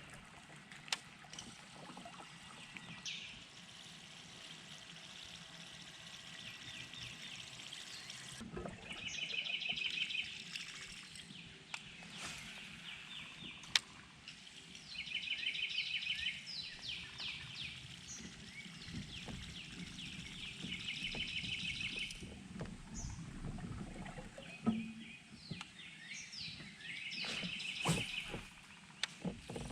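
A songbird singing a short, rapid trill, repeated about every six seconds, over faint lapping water and a few light knocks.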